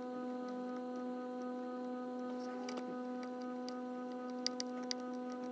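A steady pitched electrical hum, with a few light clicks of metal tweezers touching a chip's pins on a circuit board, twice about halfway through and three times near the end.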